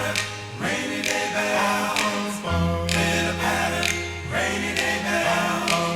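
Late-1960s pop record playing: group vocal harmonies over held bass notes, with a steady drum beat.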